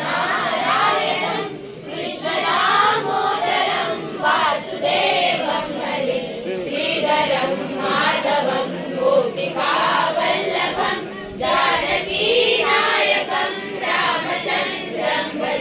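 A group of children singing a devotional song together in chorus.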